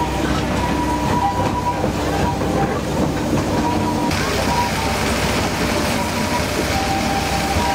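Narrow-gauge train hauled by a Hunslet diesel locomotive running, heard from the carriage: a steady engine drone with the wheels running on the track. A louder hiss comes in about four seconds in.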